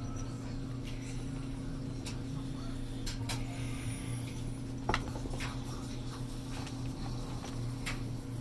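Cat shifting about inside a plastic laundry hamper, making scattered light clicks and knocks, with a sharper knock about five seconds in, over a steady low hum.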